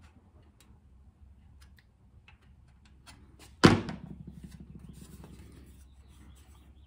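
A few faint scraping ticks from a hand tool worked along the edge of a galvanized steel plate. About three and a half seconds in, a single loud metallic clack as the tool is put down on the workbench, with a short ringing decay.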